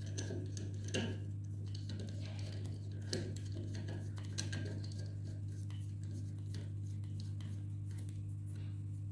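A few faint metal clicks and taps as a hex nut is turned by hand onto the eye bolt of a gate valve's gland flange, the clearest about three seconds in, over a steady low hum.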